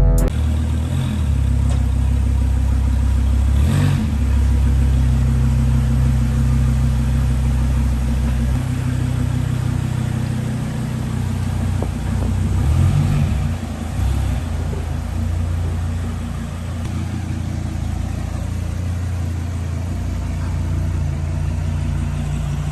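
Car engine running with a steady low rumble, as from a car being driven, the engine note shifting a few times.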